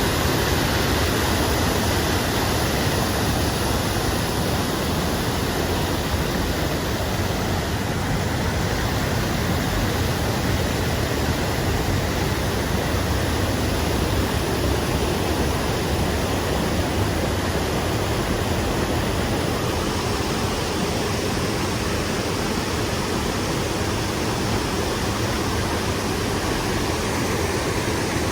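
Creek water rushing over rocks, a steady, even rush with no change.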